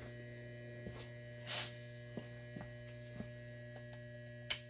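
Steady electrical mains hum from the old battery charger powering the aluminium anodizing bath, with scattered faint ticks, a short hiss about a second and a half in and a sharp click near the end.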